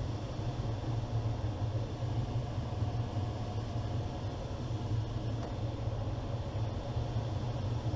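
Steady low rumble of air rushing past a glider in gliding flight, heard inside the cockpit.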